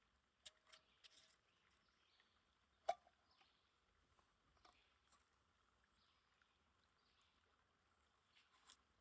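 Near silence broken by a few scattered light clicks and knocks, the sharpest about three seconds in.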